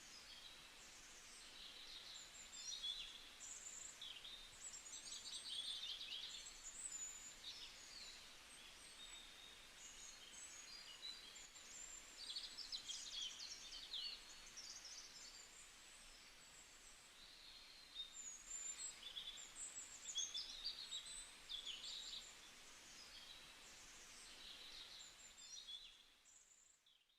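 Small birds chirping and twittering, many short high calls overlapping one another over a faint outdoor hiss; the sound fades out near the end.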